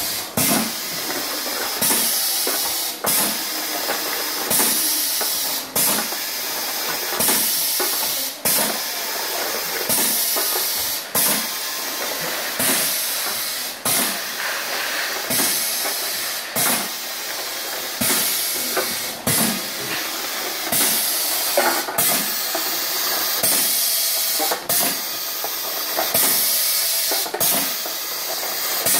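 Pneumatic piston paste filling machine cycling: a sharp click and a hiss of compressed air repeat about every one and a half seconds, as the cylinder strokes to dispense each fill.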